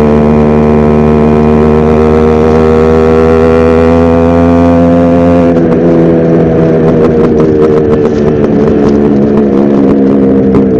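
Yamaha RX100 two-stroke single-cylinder motorcycle engine running under way. For about the first half its note holds steady and creeps up in pitch. Then it suddenly drops and turns uneven, with rapid crackling, as the throttle comes off.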